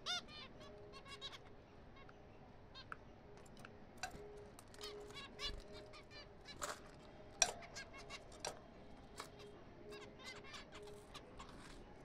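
A colony of zebra finches calling: many short nasal beeps and honks from several birds, overlapping irregularly, the loudest about seven and a half seconds in.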